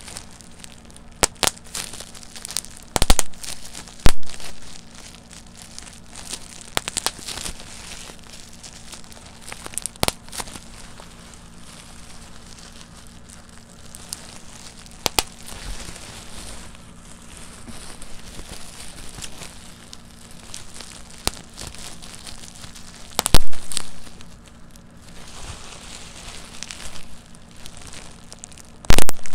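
Plastic bubble wrap twisted and squeezed between the fingers: the plastic crinkles constantly, and bubbles pop at irregular intervals. Most pops are small; a few loud sharp pops come about 3 and 4 seconds in, again after about 23 seconds, and near the end.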